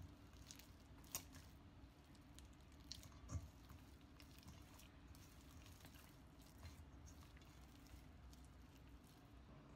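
Faint sticky squelching of bread dough being kneaded by hand in a stainless steel bowl as butter is worked into it, with a couple of light knocks.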